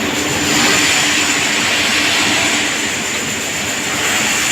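Hydraulic press brake running while it bends sheet metal: a steady hissing machine noise with a constant low hum.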